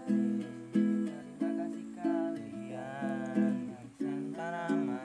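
Guitar strummed in a steady rhythm of chords, about one strike every two-thirds of a second, with a voice singing along through the middle.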